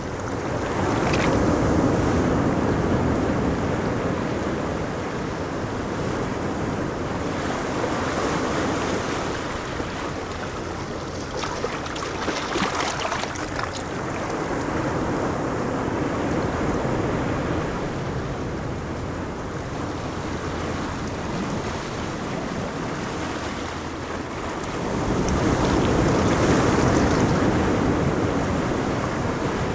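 Ocean waves breaking on a beach: a continuous rush of surf that swells and eases, surging loudest near the start and again about 25 seconds in, with some wind noise on the microphone.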